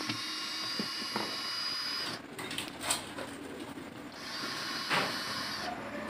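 Electric drill-driver running to unscrew the centre bolt of a top-loading washing machine's pulsator. It runs as a steady whine twice, about two seconds each time, with a short pause and a few clicks between.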